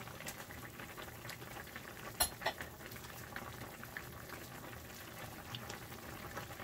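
Pot of chicken papaya soup with long rice boiling hard on an electric stovetop: a steady bubbling with lots of small pops, and a sharp click about two seconds in.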